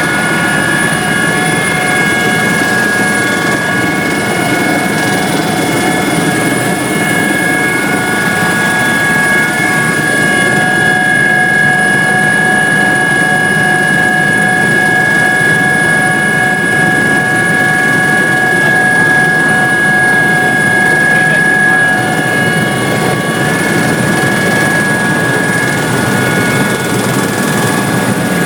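Helicopter running steadily: a loud, even drone of engine and rotor with a high steady whine on top.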